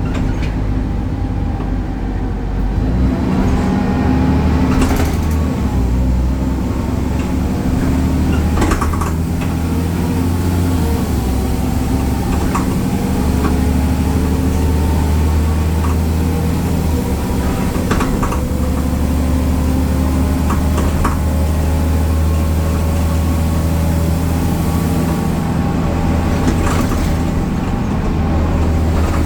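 BredaMenarini Avancity Plus city bus under way, its Deutz diesel engine and ZF gearbox running with a steady low hum. A whine climbs slowly in pitch over the second half, and a few sharp knocks or rattles come through at intervals.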